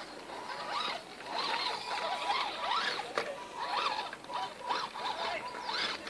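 Axial SCX10 Deadbolt RC rock crawler's electric motor and speed controller whining: a steady high tone with many quick sweeps up and down in pitch as the throttle is worked on a steep climb.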